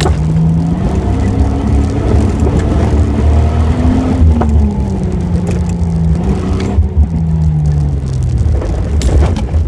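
Off-road vehicle's engine under way across a rough field, its pitch rising over the first few seconds and then falling away, over a heavy low rumble from the ride. A few sharp knocks and rattles come through, one near the end.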